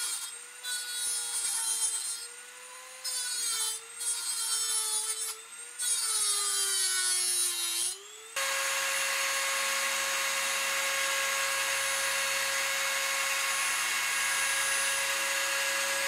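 Dremel rotary tool with a metal cut-off wheel grinding a metal bar in short passes: a hissing grind that stops and starts over a high motor whine, which wavers and sags under load. About eight seconds in the cutting stops and the tool runs free with a steady, slightly higher whine.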